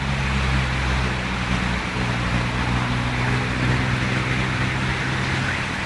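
Steady low engine hum under an even hiss, like a motor vehicle running.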